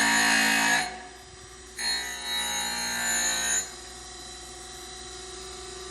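Brown and Sharpe 618 Micromaster surface grinder's wheel grinding in passes as the hydraulic table carries the work back and forth: a harsh grinding noise that breaks off about a second in and comes back for just under two seconds. After that only the machine's steady running hum is left.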